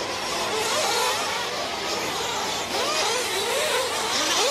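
Several small nitro-fuel RC truck engines running at high revs, their high-pitched whine rising and falling as they throttle up and back off through the corners.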